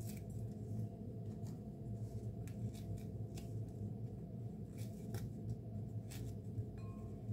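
Toasted bread being torn apart by hand, the dry crust giving short irregular crackles, over a steady low hum.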